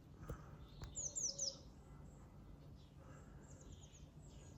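Faint wild bird chirps: a quick run of high notes, each sliding downward, about a second in, and another short run past the middle.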